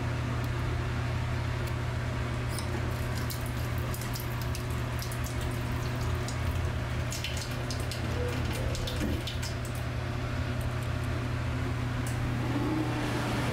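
Push-button faucet running a thin stream into a stainless steel lavatory sink, the water splashing and dripping in the basin for several seconds from about two seconds in, over a steady low hum.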